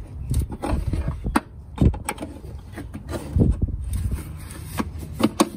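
Adjustable wrench turning the lower hood-strut mounting bolt loose, with scattered sharp metal clicks and knocks of the wrench shifting and re-seating on the bolt.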